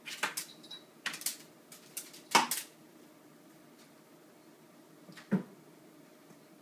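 Munchkin cat's claws clicking and tapping on the top of a flat-screen TV as it walks along it: a quick run of sharp taps over the first few seconds, then a single thump about five seconds in as it jumps down.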